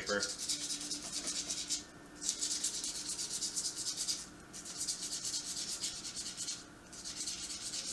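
Sandpaper rubbed by hand over the outside of a short copper tube in quick back-and-forth strokes, a dry rasping that stops briefly about two, four and seven seconds in. The cut copper is being cleaned up before the yeast catcher is assembled.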